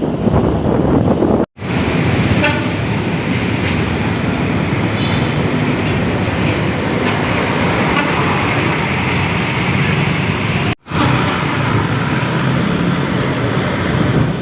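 Loud traffic noise from behind a Luragung bus, its diesel engine and loud aftermarket exhaust running under road and wind noise. The sound drops out abruptly twice, once near the start and again about three-quarters of the way through.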